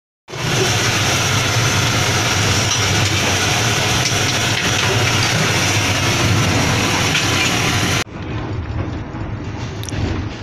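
Loud, steady running of the train's power-van diesel generator, a low hum with hissing noise over it, in the kitchen where chips are frying in a pot of oil over a gas burner. About eight seconds in it cuts to the quieter rumble of the train running, heard inside a passenger cabin.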